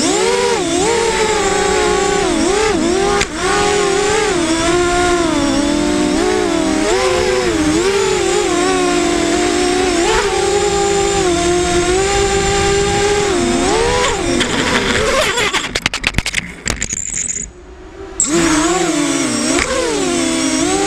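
Racing quadcopter's brushless motors and propellers whining, the pitch rising and falling continually with the throttle. About 15 s in the sound breaks up into crackles and cuts out for about a second, then the whine returns.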